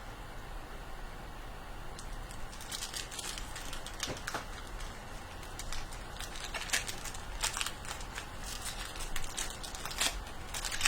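Trading card packs and cards being handled: scattered short crinkles and clicks of wrapper and card stock, over a steady low hum.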